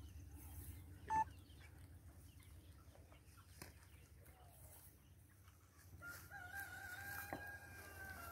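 A rooster crowing: one long, wavering call that starts about six seconds in. A short, sharp squeak comes about a second in.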